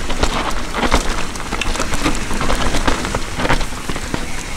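Mountain bike rolling down a wet, muddy downhill trail, heard from a chin-mounted camera: a steady rush of tyre and wind noise, broken by many quick clicks and knocks as the bike rattles over roots and bumps.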